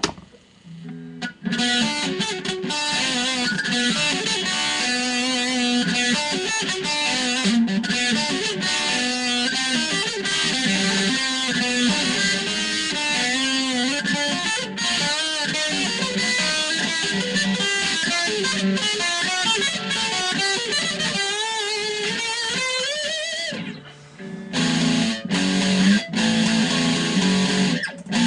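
Electric guitar, a BC Rich Warlock, played as a lead line with string bends and vibrato, ending in a long rising bend. After a short break a little before the end, a heavier low riff starts.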